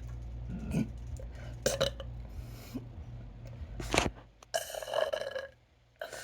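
A person burping several times: a few short burps, then a longer burp of about a second near the end.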